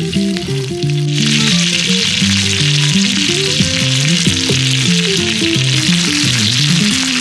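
Food frying on a multi griddle, a steady loud sizzle that comes in abruptly about a second in.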